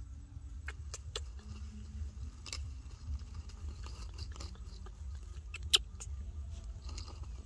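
Light, scattered scratching and clicking of movement on dry dirt and leaves, with one sharp click near the end, over a low steady rumble.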